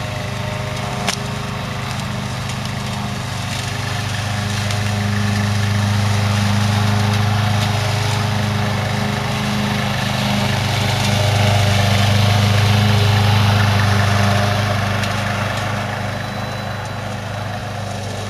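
Hybrid remote-control slope mower running, its gas engine giving a steady low drone that swells louder twice as it works. A single sharp click sounds about a second in.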